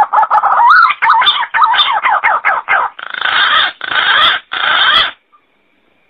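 Green pigeon (punai) calling: a quick run of whistled notes that wobble up and down in pitch, then three harsher, noisier notes, stopping suddenly about five seconds in.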